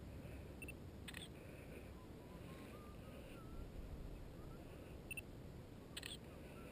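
Faint wind rumble on the camera's microphone on an exposed ridge, with a few soft clicks: one about a second in, a quick pair about five seconds in and one more near the end.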